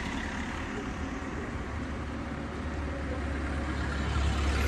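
Steady low rumble of a car's engine and road noise heard from inside the moving car, growing a little louder near the end.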